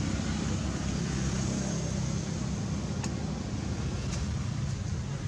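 A steady, low motor hum over constant background noise, with a couple of faint clicks about three and four seconds in.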